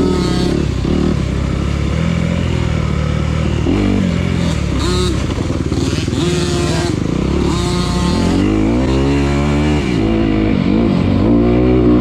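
Dirt bike engine revving up and easing off again and again while riding, with a long climbing rev near the end.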